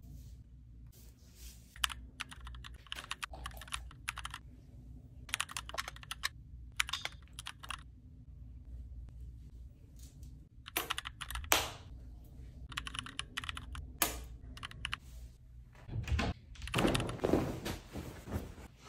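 Close-up crackling and squishing of hands working product through wet hair and over skin, in irregular bursts with short pauses. Near the end, louder rustling of bedding being straightened.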